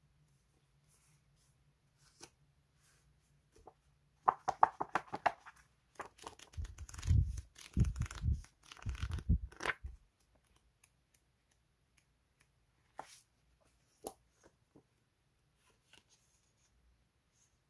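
Paper label-sticker sheets being handled and flipped through. About four seconds in there is a quick riffle of pages, then several seconds of loud rustling paper with soft thuds, and after that only a few light taps.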